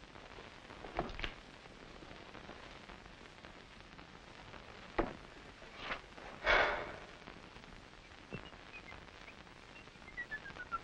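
A young man whistling a tune, starting near the end with a run of falling notes that then climb again, over a faint hiss from an old film soundtrack. Before that there are only a few faint knocks and one brief louder noise.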